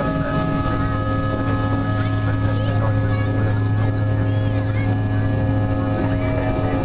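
Cabin drone of a CRJ200 regional jet in flight: its rear-mounted General Electric CF34 turbofans and the airflow give a steady, loud hum with a strong low note and several held tones above it.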